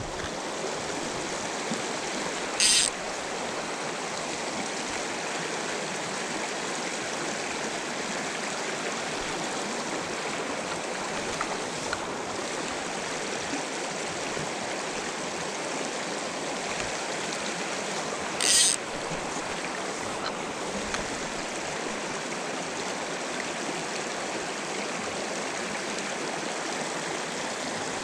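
Small mountain stream running steadily over a shallow, rocky riffle. Two brief high, hissy sounds stand out, one about three seconds in and one a little past the middle.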